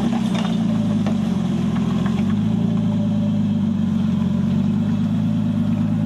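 Off-road 4x4 vehicle's engine running steadily, its pitch stepping up slightly about two seconds in, with a few faint clicks in the first two seconds.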